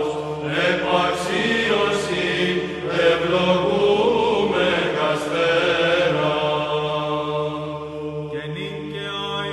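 Byzantine Orthodox chant sung by a church choir. The voices carry a moving melody over a steady held drone (the ison), and the melody starts a new phrase a little after eight seconds in.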